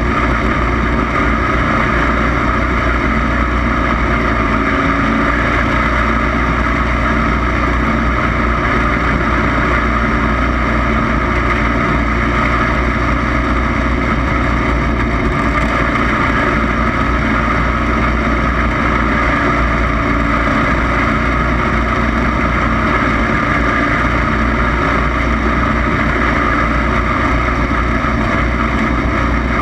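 Racing lawn mower engine running loud and steady, with no clear rises or drops in pitch.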